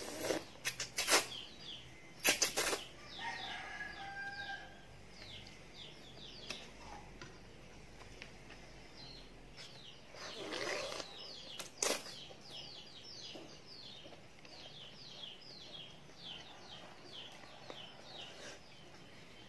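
A child slurping up forkfuls of yellow chicken noodles, loudly at the start, again about two seconds in and about ten seconds in. Birds chirp over and over in the background throughout.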